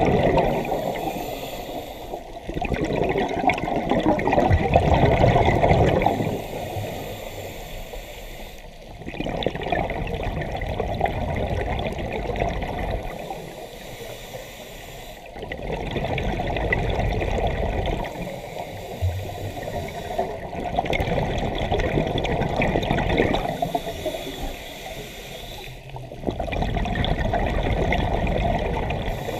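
Scuba diver breathing through a regulator underwater: exhaled air bubbles rush and gurgle in long swells every several seconds, with quieter stretches between breaths.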